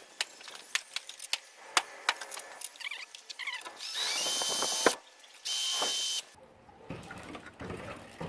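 Scattered clicks and knocks of parts and tools being handled, then two short runs of a power drill, each a second or less, with a steady high whine.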